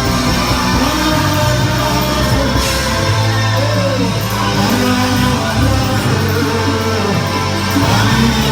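Live gospel worship music from a church band, with a bass line, guitar and singing.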